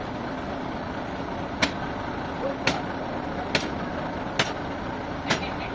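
A steady mechanical running noise with a sharp knock or click about once a second, evenly spaced.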